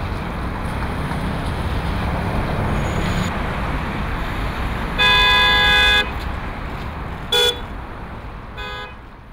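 Steady city street traffic noise, with a car horn sounding for about a second, then a short toot and a fainter one; the sound fades out near the end.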